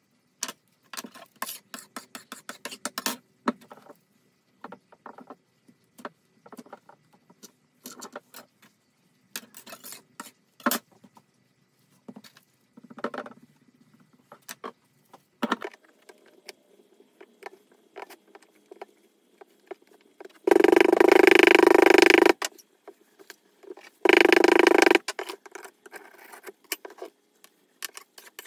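A small metal moulding flask and red casting sand being handled for a sand mould: scattered clicks, taps and rubs. About two-thirds of the way in come two louder bursts of rough noise, the first nearly two seconds long and the second about a second.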